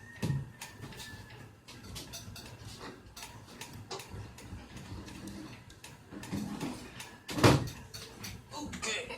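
Hands handling the battery pack and tools on a work surface: scattered light clicks and knocks, with a sharp knock just after the start and a louder thump about seven and a half seconds in.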